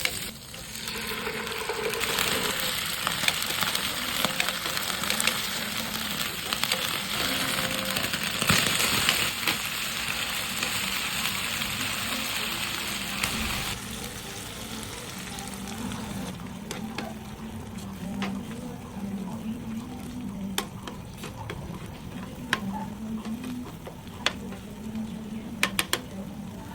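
Food sizzling as it fries in a pan: a loud, even hiss that drops off sharply about halfway through, after which quieter clicks and taps remain.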